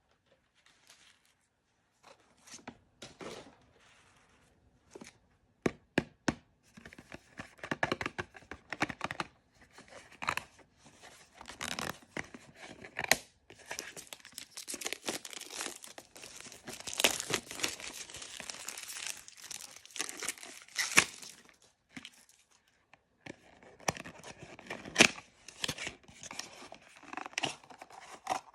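Blind bag packaging being torn open and crinkled by hand. Scattered sharp clicks and rustles lead into a long stretch of continuous tearing and crinkling. A few sharper snaps come near the end.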